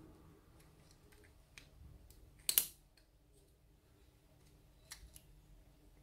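Small metallic clicks and scrapes of a mortise lock cylinder being worked with a shim and a plastic plug follower. One sharper click about two and a half seconds in, and a couple more light ones near the end.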